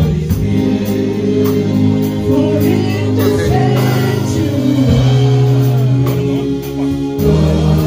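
Live gospel worship music: several singers on microphones sing a slow song together over a band of electric bass and drum kit. Steady cymbal strokes keep time throughout.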